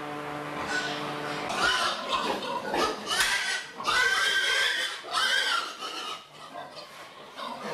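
Sows in a pen squealing, several loud, pitched squeals from about one and a half to five and a half seconds in, quieter after; a steady hum runs under the first second and a half.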